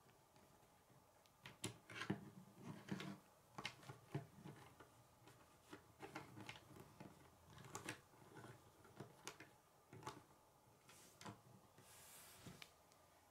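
Faint, irregular clicks and taps of K'nex plastic rods and connectors being handled and fitted together, with the model set and shifted on a wooden tabletop.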